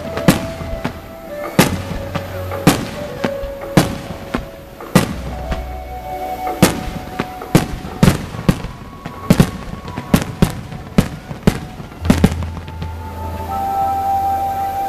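Aerial fireworks bursting in a rapid, irregular string of sharp bangs, densest in the middle and thinning out about twelve seconds in. Music with a deep bass line plays underneath and comes forward near the end as the bangs stop.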